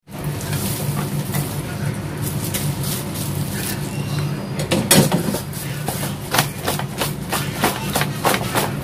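Roasted peanuts tipped onto a cucumber and mushroom salad in a plastic tub, then stirred in by a gloved hand: a run of clicks and rustles, loudest about five seconds in, over a steady low hum.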